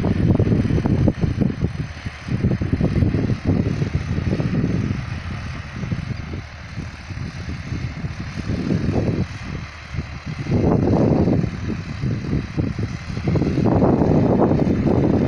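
Distant John Deere 5405 tractor, a 63 hp three-cylinder diesel, working a rotavator in the field, its engine a steady drone. Heavy wind buffeting on the microphone is the loudest sound, a gusty rumble that eases in the middle and picks up again near the end.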